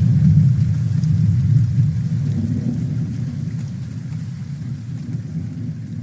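Thunderstorm: steady rain with a deep rolling rumble of thunder, slowly fading out.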